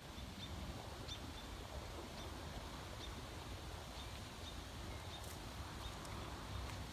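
Outdoor ambience: a small bird gives a short high chirp every second or so over a low, steady rumble.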